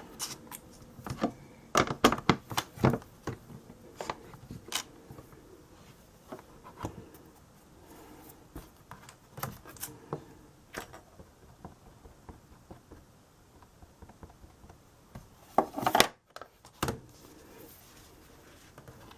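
Irregular clicks, taps and light rubbing from handling paper and a stamp on a Stamparatus stamping platform, busiest in the first few seconds, with a louder flurry of handling near the end.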